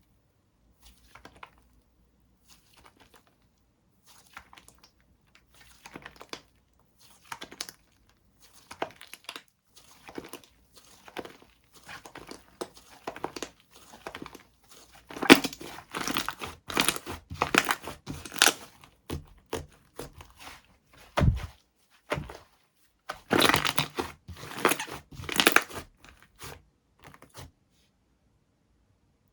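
Hands working a banana cream soufflé slime, squishing, stretching and pulling it so it gives sticky crackling, popping and tearing sounds. The crackles are sparse at first and grow denser and louder from about halfway, with short pauses and a single low thud near the end.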